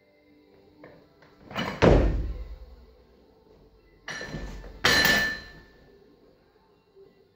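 Barbell snatch: about two seconds in, a heavy thud as the lifter stamps his feet and catches the loaded bar overhead, with the plates rattling. About five seconds in, the barbell is dropped from overhead onto the platform, the plates landing with a loud bang and a ringing metallic clang that dies away.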